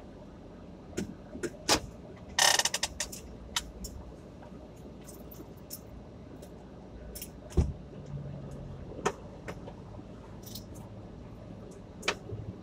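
Handling noises inside a stopped car's cabin over a low steady hum: scattered clicks and taps, a brief jangling rattle about two and a half seconds in, and a single thump a little past halfway.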